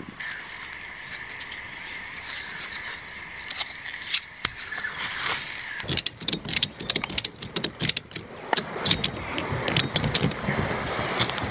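Ratchet buckle on a cargo strap being cranked tight, making quick runs of sharp metallic clicks over the second half. Before that comes fainter rustling of a vinyl dry bag being rolled shut.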